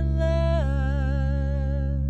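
A woman's solo voice sings slow held notes with vibrato over a steady low drone, stepping down to a lower note about half a second in.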